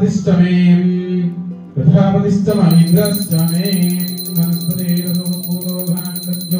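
Music with a sustained low melody. About two and a half seconds in, a bell starts ringing continuously with rapid strikes, as a puja hand bell is rung during the ceremony.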